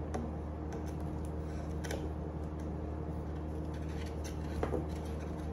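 A few scattered light clicks and rustles of plastic broom parts being handled, over a steady low hum.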